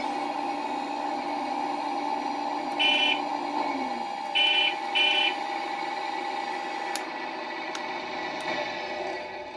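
Servonaut SMB sound unit in an RC excavator playing a simulated diesel engine sound through its small speaker, a steady tonal hum. Three short high beeps sound in the middle, and the engine sound thins and fades toward the end.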